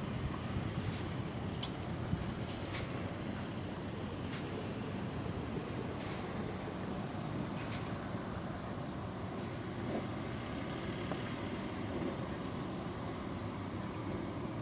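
Steady outdoor background noise with a short, high chirp repeating roughly once a second.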